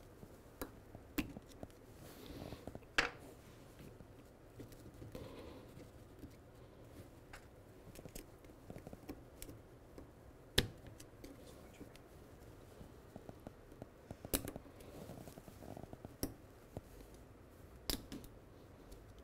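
Small metal clicks and scraping as a screwdriver tip pries at the circlip in the bore of a BMW R90/6 front brake master cylinder while the piston is held down. There are a few sharp clicks, the loudest about three seconds in and about ten and a half seconds in, with softer scrapes and handling between.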